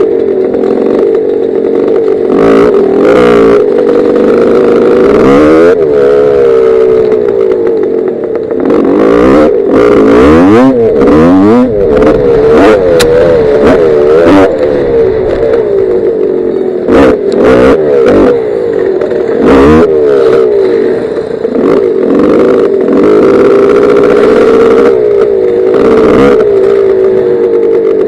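Gas Gas 250 dirt bike engine running hard, its revs rising and falling over and over as the rider works the throttle and gears, picked up close by a helmet camera. Many short knocks and clatter come through as the bike bounces over the rough, rocky trail.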